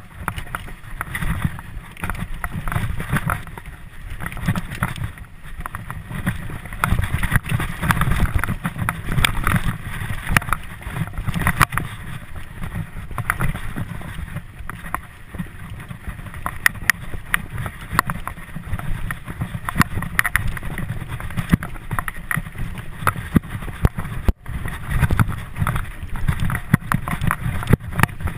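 Mountain bike ridden fast down a dirt forest trail: the tyres rumble over the ground and the bike rattles and clicks over bumps, with wind buffeting the microphone.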